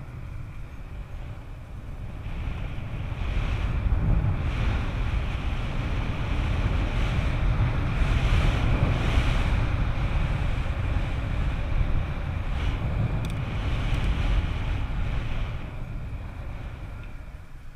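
Wind buffeting the microphone over the rumble and rattle of a mountain bike riding down a rough downhill trail. It grows louder after a couple of seconds and eases near the end.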